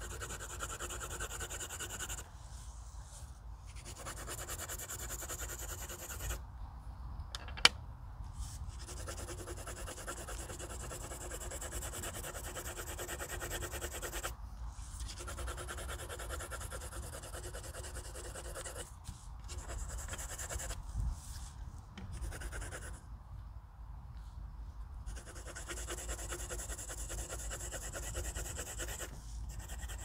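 Colored pencil shading on paper: scratchy back-and-forth strokes in stretches of a few seconds, broken by short pauses, with one sharp click about seven and a half seconds in.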